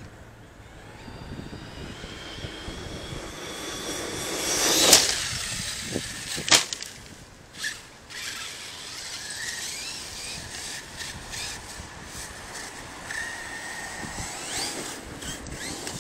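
Arrma Kraton 6S RC truck's brushless electric motor whining as it accelerates, the pitch rising to a loud peak about five seconds in, followed by a sharp thud about a second and a half later, the truck landing a jump. A few lighter knocks follow, and near the end the whine rises again.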